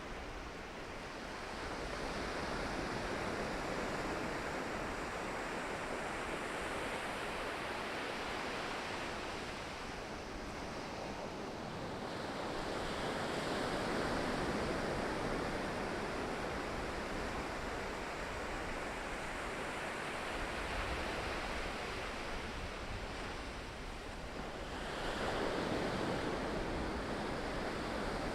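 Pacific Ocean surf: waves breaking and washing in as a continuous rushing noise that swells louder three times, roughly every ten to twelve seconds.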